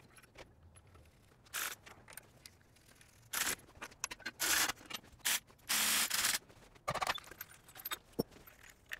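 Scattered short metal scrapes and clinks of tools, bolts and engine-stand arms being handled while the stand is bolted to an engine block, the longest lasting about half a second near the middle.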